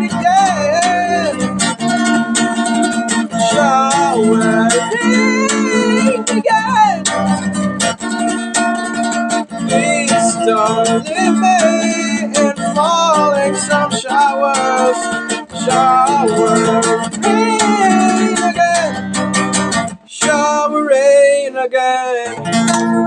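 Music: strummed acoustic guitar with a wordless vocal melody over it, the music briefly dropping out about 20 seconds in before resuming.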